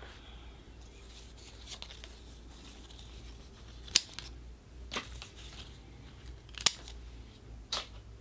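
Bonsai scissors snipping through the soft new shoots of a Ficus microcarpa, pruning them back to the first leaves: four sharp snips in the second half, the loudest about four and seven seconds in.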